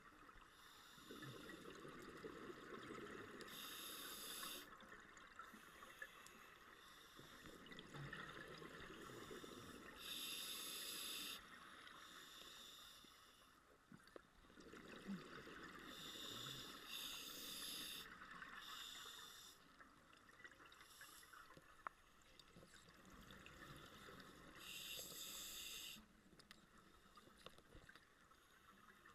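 Scuba diver breathing underwater through a regulator, faint: a hissing inhale and then a burst of exhaled bubbles, four breaths about six to seven seconds apart.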